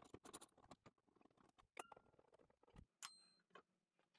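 Near silence with faint scattered clicks of a socket wrench and small bolts being handled, and two small metallic clinks that ring briefly, about two and three seconds in.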